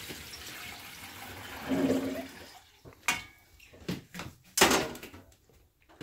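Water running in a kitchen for about two and a half seconds, then a few sharp knocks of kitchen items being handled, the loudest near the end.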